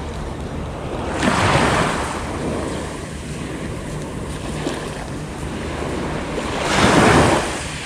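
Small waves washing up onto a pebble beach, surging twice, about a second in and again near the end, over a steady background of surf.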